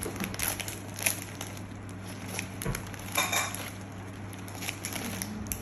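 Scissors snipping open a plastic instant-noodle packet: a few short snips and crinkles of the plastic, over a steady low hum.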